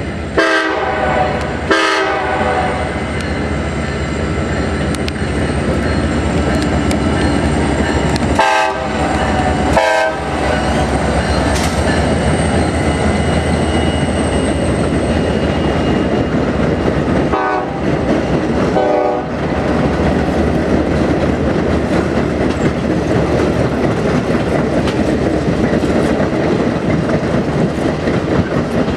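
Alaska Railroad diesel-hauled passenger train passing close by, its wheels clicking and rumbling steadily over the rails. The locomotive horn sounds three times, each a pair of short blasts: about a second in, around nine seconds in, and around eighteen seconds in.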